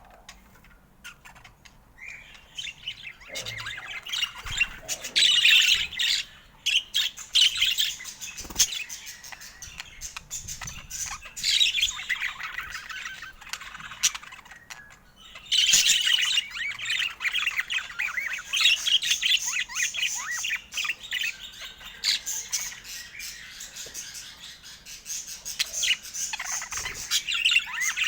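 Pet budgerigar chattering rapidly with chirps and harsh squawks, in two long spells with a brief pause about halfway through. A few faint ticks come before the chatter begins.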